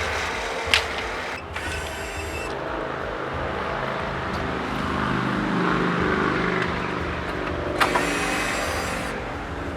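Chainsaw running steadily as it rips along a rough plank in a homemade chainsaw mill, its pitch and loudness swelling a little past the middle. Two sharp clicks, one about a second in and one near the end.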